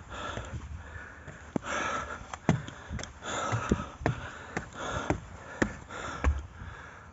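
A hiker breathing hard through nose and mouth, a swell of breath every second or so, with footsteps at about two a second as he walks on, short of breath.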